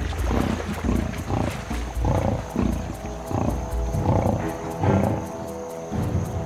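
Lionesses growling in repeated low bursts as they bring down and feed on a buffalo, over background music with held tones.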